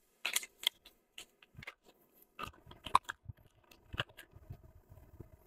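Cable packaging pouch crinkling and rustling as it is unfolded and opened by hand: irregular crackles with a few sharper clicks, the sharpest about three seconds in.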